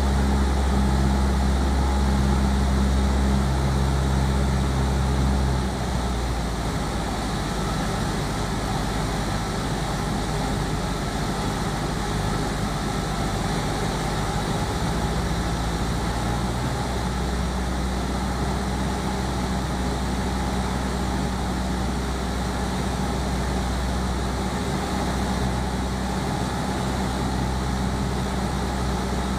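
Light aircraft's piston engine and propeller droning steadily in cruise, with rushing airflow; the engine note drops slightly about six seconds in.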